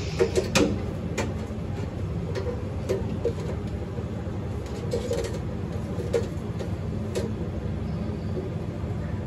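Steady low hum of a Dixie Narco DN368 soda vending machine's refrigeration unit running, with scattered small clicks and rattles of plastic cable connectors being handled and plugged together.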